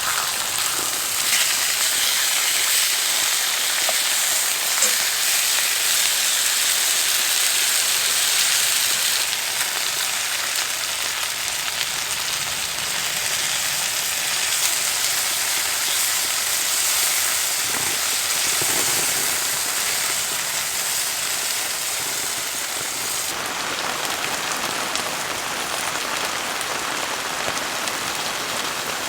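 Steady rain pattering on a heavy-duty camping tarp, with a pork chop sizzling in a frying pan underneath; the hiss eases a little near the end.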